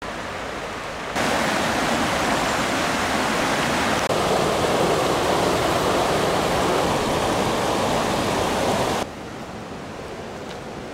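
Steinhatchee Falls, the river rushing over a low, wide limestone ledge: a steady rush of water. The level jumps up about a second in, shifts again around four seconds, and drops abruptly near nine seconds.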